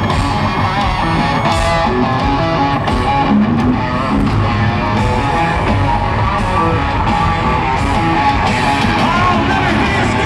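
Live country-rock band playing loud, led by guitars with some singing, in a concert arena.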